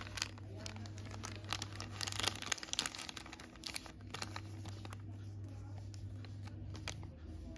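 Paper rustling and crinkling as a printed invoice is pulled from a paper envelope and unfolded, busiest in the first half and thinning out after about four seconds.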